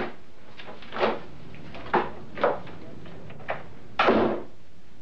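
A few short knocks and bumps, then a louder, longer bang about four seconds in: a door being opened and shut as someone goes out.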